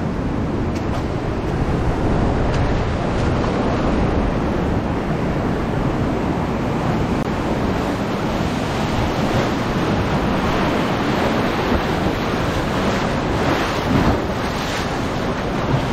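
Ocean surf washing in steadily, with wind rumbling on the microphone. The surf swells louder near the end.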